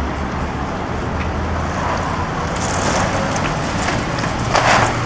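Steady low rumble of road traffic, with a brief noisy burst near the end.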